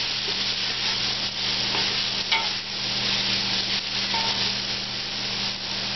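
Chopped garlic, shallots and chili flakes sizzling in hot oil in a stainless steel saucepan as a wooden spoon stirs them, with an occasional brief scrape of the spoon against the pan; the flakes are being toasted to release their oils. A steady low hum runs underneath.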